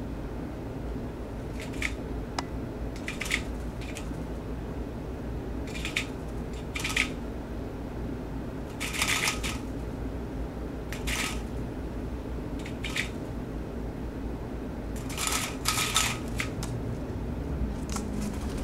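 Young northern mockingbird giving short, scratchy, noisy notes at irregular intervals, about a dozen in all, some in quick pairs, over a steady low hum.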